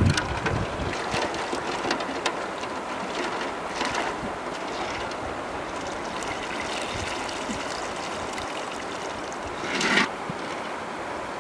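River water splashing and sloshing as a large metal wok of goose eggs is dipped into the shallows and the eggs are rinsed by hand, with a louder splash near the end.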